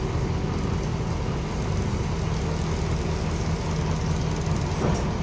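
Diesel engine of a LiAZ 5256.45 city bus running, heard from inside the passenger cabin as a steady low drone, with a brief click near the end.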